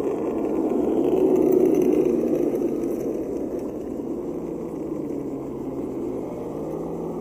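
Radio-controlled scale crawler trucks' electric motors and geared drivetrains whirring as they crawl, louder about a second or two in and then easing off.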